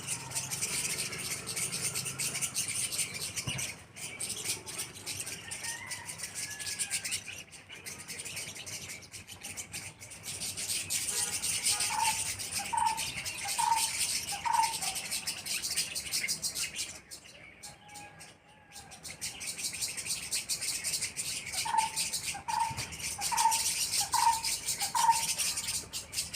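Many small birds chirping together in a dense, continuous chorus. A lower-pitched bird call is repeated about once a second in two runs of four to five notes, one a little under halfway through and one near the end.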